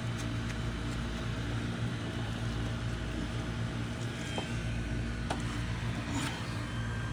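A steady low machine hum, with a few faint clicks and taps near the end.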